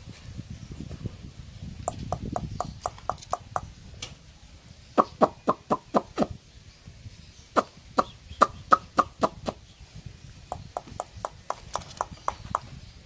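Rapid sharp knocks in bursts of five to eight, about four or five a second, with short pauses between the bursts; a low rumble under the first couple of seconds.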